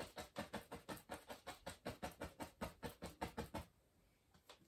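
Fan brush loaded with dark oil paint tapping against a canvas, faint and regular at about four taps a second, as tree branches are dabbed in; the tapping stops about three and a half seconds in.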